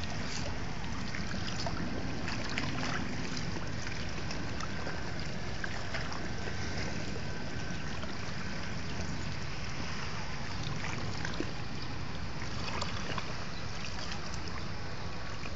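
Sea waves washing over a beach of rounded pebbles, a steady rushing with many small clicks of stones knocking together, over a low rumble.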